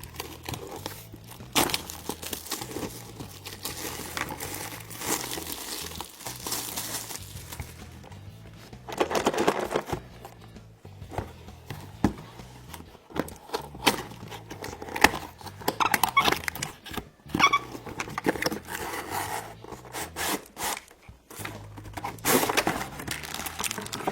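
Plastic packaging and a cardboard box crinkling, tearing and rustling in irregular bursts as a toy playset is unpacked, over quiet background music with a steady bass line.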